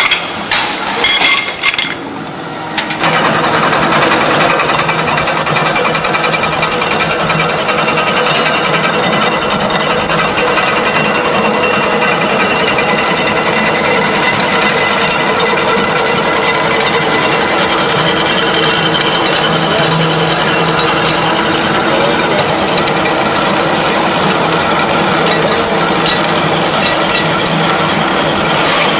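Three-roll thread rolling machine with automatic tube loader running: a few sharp metal clinks in the first two seconds, then steady loud mechanical running with a constant hum.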